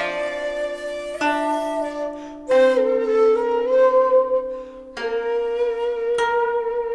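Instrumental background music: a slow melody of held notes that changes pitch every second or so, each new note starting sharply.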